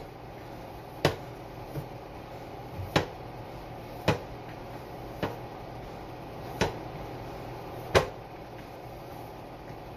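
Hand kneading cassava dough in a plastic mixing bowl, with a sharp knock of the bowl and dough against the counter about once a second, irregularly spaced, over a steady faint room hiss.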